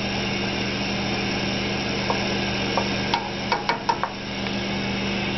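Wooden spoon stirring thick tomato sauce in a stainless steel saucepan, over a steady low machine hum. A few short clicks and knocks come about three to four seconds in.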